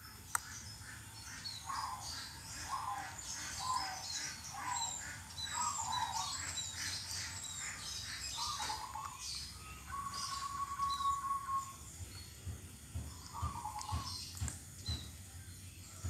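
A caged perkutut (zebra dove) cooing in phrases of quick, repeated notes, with small birds chirping at a higher pitch over it. A sharp click comes right at the start.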